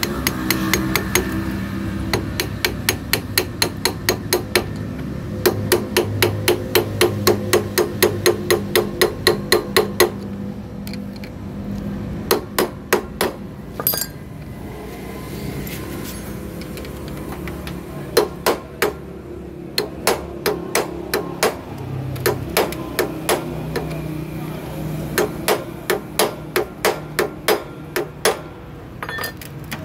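Light, rapid hammer taps on a flat screwdriver set against the clutch centre nut of a Honda CD70 engine, driving the nut tight without a socket. The metal taps come in several runs of about three a second, with short pauses between the runs.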